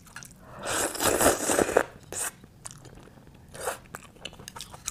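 Close-miked eating sounds: chopsticks picking garlic topping from a grilled oyster shell, with wet mouth clicks and chewing. There is a louder noisy stretch about a second in, then a few sharp clicks.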